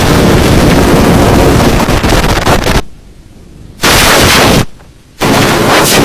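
Loud, heavily distorted sound effect: a dense, crackling wall of noise that cuts out abruptly twice near the middle, each time for under a second, and snaps back at full level.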